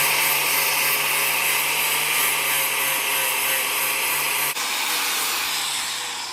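Electric grinder grinding steel: a loud, steady hiss over a motor hum, which gradually gets quieter in the last second or so.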